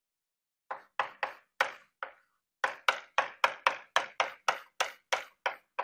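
Chalk hatching on a blackboard: quick diagonal strokes shading an area, each a sharp tap with a short scrape. First a few spaced strokes, then after a brief pause a steady run of about four a second.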